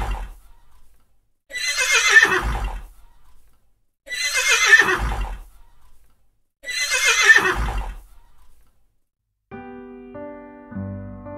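A horse whinnying again and again, about every two and a half seconds. Each call falls in pitch and sounds identical, the same whinny repeated. Gentle piano music begins near the end.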